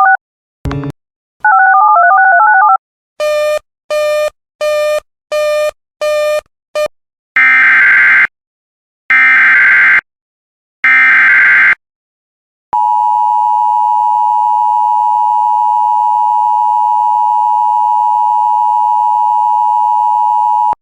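Emergency Alert System broadcast tones: a warbling electronic tone and six short beeps, then the three screeching SAME data header bursts, each about a second long. About halfway through, the two-tone EAS attention signal starts and holds steady for about eight seconds, announcing a new warning.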